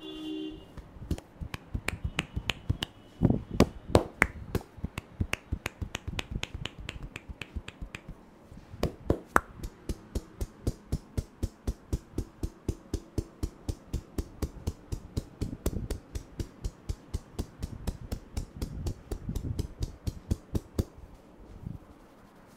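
Rapid clicks from a barber's percussive head massage: hands tapping and snapping on the head in a quick rhythm of about five strokes a second, with brief breaks between runs.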